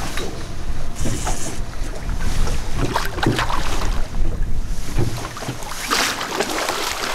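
Wind buffeting the microphone over a steady low rumble, with water sloshing. About six seconds in comes a louder splashing as a hooked chinook salmon thrashes at the surface and is scooped into a landing net.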